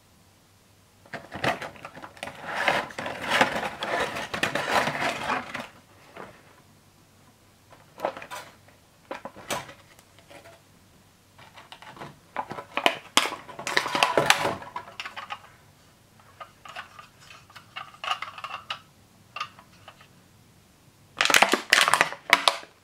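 Clear plastic blister packaging and a cardboard box being handled and opened: crinkling and crackling plastic with sharp clicks, in about five spells with quiet between.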